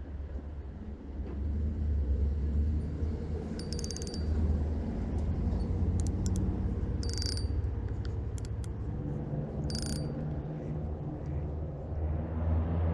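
Shimano Sienna spinning reel being cranked, its gears ticking, with short bursts of clicking about four, seven and ten seconds in, over a steady low rumble.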